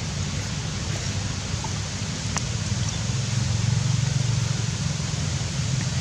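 Steady outdoor background noise: a low rumble with a hiss over it, a little louder in the middle, and a few faint clicks.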